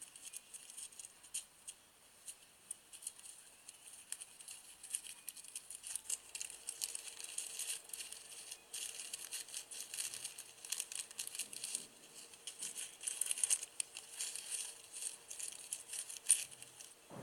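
Plastic packets of slime decorations crinkling and small trinkets rattling as they are handled and opened, a run of quick light rustles and clicks.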